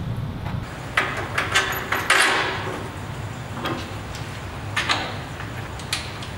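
Scattered metallic clanks and knocks of a steel axle, sprocket and hardware being handled and fitted to a go-kart frame, with a louder scraping clatter about two seconds in, over a steady low shop hum.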